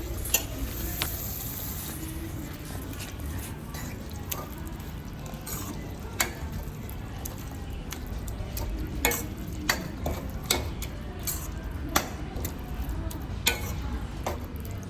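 A spoon stirring chunks of elephant yam and Malabar spinach in a pan with oil and tempering, knocking and scraping against the pan at irregular intervals over a steady low background noise.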